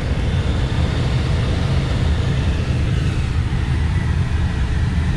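Steady low rush of air streaming past a glider's cockpit in flight.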